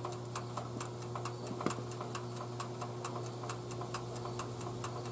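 Toaster oven's mechanical timer ticking steadily, about four ticks a second, still running, with one louder click about a second and a half in. Under it runs a steady electrical hum.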